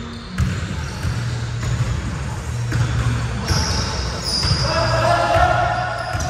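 Basketballs bouncing on a hardwood gym floor, with short high sneaker squeaks and players' shouts, echoing in a large hall.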